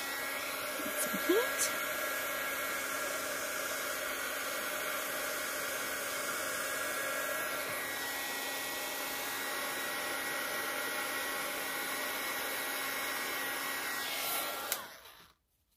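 Handheld heat gun running: a steady fan rush with a motor whine, cutting in suddenly and winding down as it is switched off near the end.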